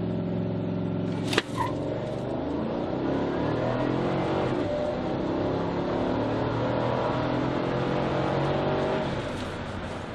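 2015 Cadillac Escalade's 6.2-litre V-8 heard from inside the cabin, accelerating hard at full throttle from a standstill, with the pitch stepping through the six-speed automatic's upshifts. A single sharp knock comes about a second and a half in, and the engine eases off near the end as the throttle is lifted.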